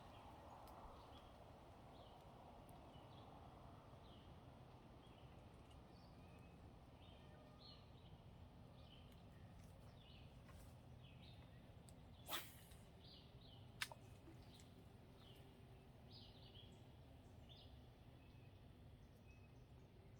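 Quiet outdoor ambience with a bird chirping faintly over and over in short, falling notes, about one or two a second. A sharp click comes about midway, the loudest sound, and another about a second and a half later.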